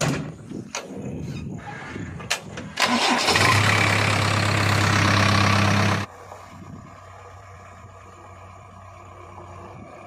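Knocks and clatter in the JCB 3DX backhoe loader's cab, then its diesel engine starts about three seconds in and runs loud and steady. About six seconds in it drops suddenly to a quieter, even running sound.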